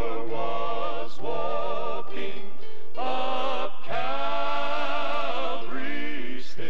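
Gospel male quartet singing in close harmony, holding long chords with vibrato and breaking briefly between phrases.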